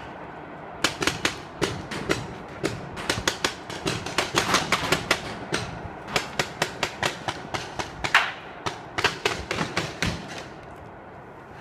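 Paintball markers firing in rapid strings of sharp pops, several a second, with short pauses between strings. The shooting stops near the end.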